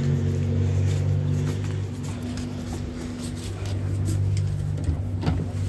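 Steady low mechanical hum with faint clicks and rustles over it.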